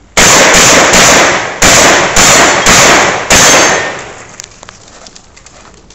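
Remington 12-gauge shotgun fired seven times in quick succession over about three seconds, each report very loud with a short ringing tail.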